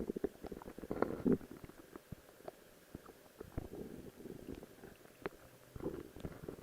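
A person's stomach growling and gurgling, close to the microphone: irregular bubbling with quick pops, loudest about a second in, with softer rumbles after and another gurgle near the end.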